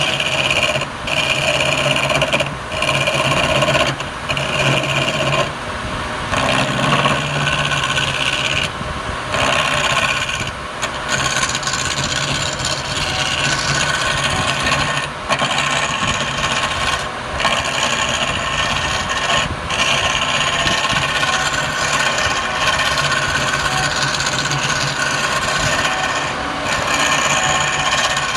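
Wood lathe running while a hand tool scrapes and cuts a spinning piece of palm wood, with a steady motor hum under the scraping. The cutting noise breaks off briefly several times in the first ten seconds as the tool comes off the wood, then runs on steadily.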